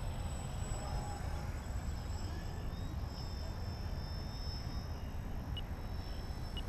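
Wind buffeting the camera microphone as a steady low rumble, with the faint, thin high whine of a radio-controlled aerobatic plane's motor and propeller passing overhead.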